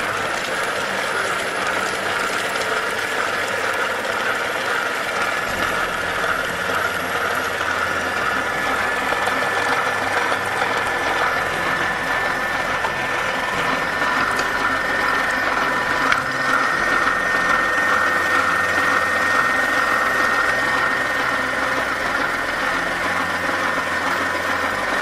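Kenwood food processor running steadily at speed, a high whine over a rushing whir, as it purées basil, pine nuts, garlic and oil into pesto. It cuts off at the very end.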